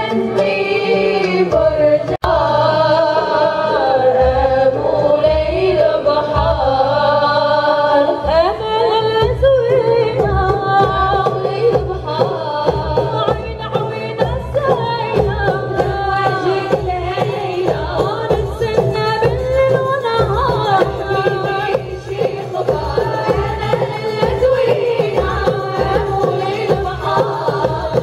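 Moroccan women's folk ensemble: several women singing together over a steady beat of bendir frame drums and small hand drums.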